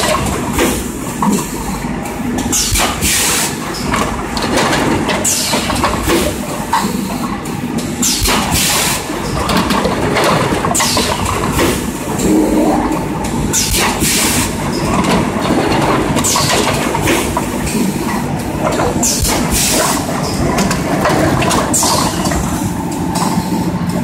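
BM A6 six-cavity PET bottle blow molding machine running: continuous mechanical clatter, broken every couple of seconds by short bursts of hissing air.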